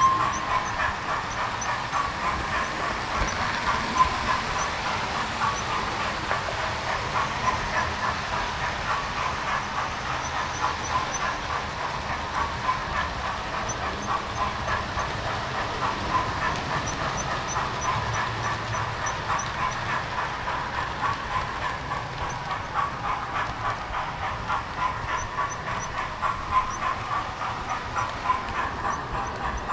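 Model railway train running along the track with the camera on board: a continuous rattle of small wheels with rapid, regular clicking over the rail joints and a steady whine underneath.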